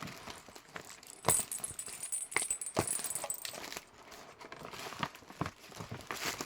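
Gift packaging being handled by hand: paper and plastic rustling with scattered irregular clicks and taps, the rustle strongest for a couple of seconds about a second in.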